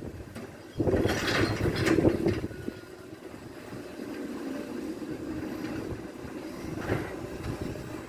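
Side-loading recycling truck emptying a wheelie bin with its mechanical arm. A loud clatter of recycling tumbling into the truck starts about a second in and lasts a second or two. After that the truck's engine runs steadily, with a short knock near the end.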